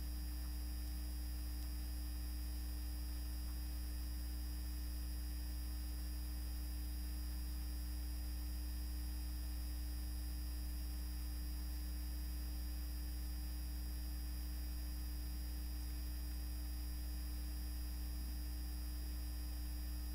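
Steady electrical hum from the recording setup: an unchanging low drone with a few faint fixed higher tones and light hiss, and nothing else.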